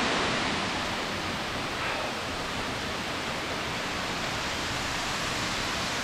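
Small jungle waterfall cascading over rocks: a steady, even rush of falling water.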